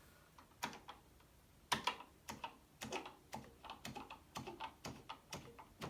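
Keys on a Commodore PET 8032 business keyboard being pressed one after another in an irregular run of clicks, a few at first and then many in quick succession. The keys are being tested after their carbon contact pads were buffed.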